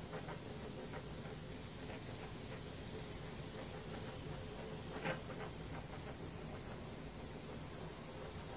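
Small handheld butane torch hissing steadily as it is passed over wet acrylic pour paint to bring up cells, with one light click about five seconds in.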